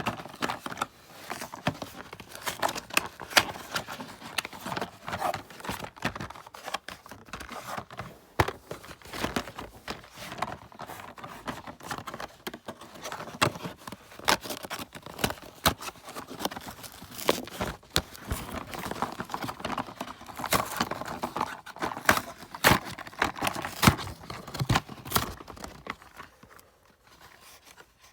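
Cardboard packaging of a diecast toy-car two-pack being torn open and handled: irregular rustling, tearing and sharp clicks. It dies down near the end.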